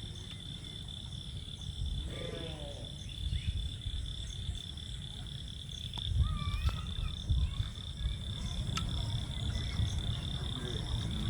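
Frogs calling, with a steady high-pitched drone of crickets, and a low rumble beneath.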